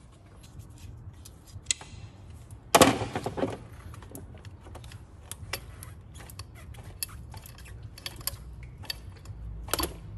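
Hands working on plastic electrical connectors and hoses in an engine bay: scattered small clicks and rattles, with a louder rattle about three seconds in and a shorter one near the end.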